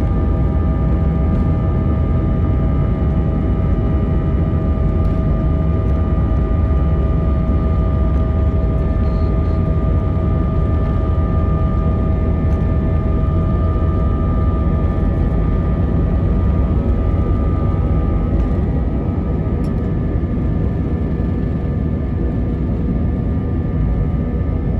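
Airbus A320 cabin noise on the takeoff roll, heard from a window seat over the wing: the jet engines at takeoff thrust give a steady whine over a heavy low rumble. The whine fades and the noise eases a little about three-quarters of the way through, as the aircraft lifts off the runway.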